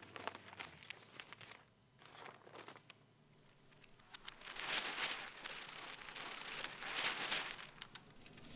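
Newspaper pages rustling and crackling as a broadsheet is opened and handled: light crackles and taps at first, then two longer swells of rustling in the second half.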